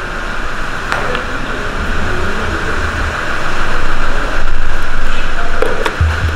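A steady low mechanical rumble of a running motor, swelling to its loudest past the middle. A few sharp metal clicks come from a stripped Kia S6D engine block being turned on its engine stand.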